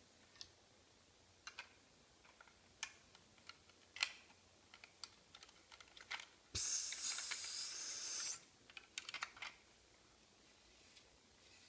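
Plastic Lego bricks clicking and tapping against each other and a tile floor as they are picked up and fitted together, in scattered clicks. About six and a half seconds in, a loud hiss that lasts nearly two seconds and then cuts off.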